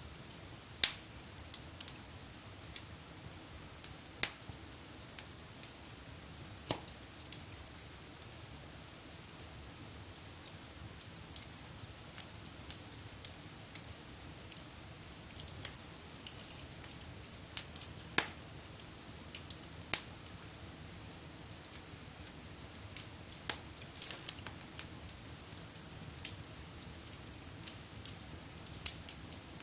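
Wood fire burning in a fireplace, crackling with irregular sharp pops over a soft steady hiss; a handful of pops stand out louder, the first about a second in.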